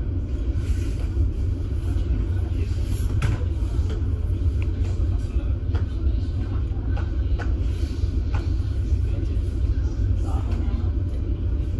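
Steady low rumble of a ferry's engines, with a few faint scattered knocks and clatters over it.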